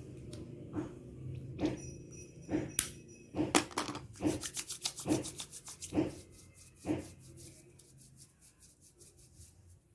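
Equipment being handled and gathered: a series of knocks about one a second with rubbing, and a fast light rattle of ticks through the middle.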